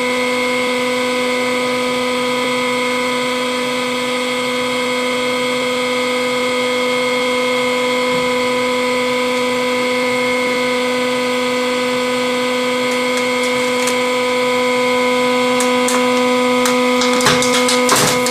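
Hydraulic press pump running with a steady, unchanging whine. Near the end, a run of sharp cracks and crackles comes in as the ram crushes the Play-Doh and its plastic tubs.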